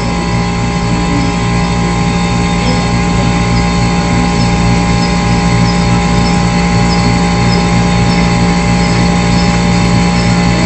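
A steady mechanical drone: several constant steady tones over a hiss, with a low pulsing beat a few times a second underneath.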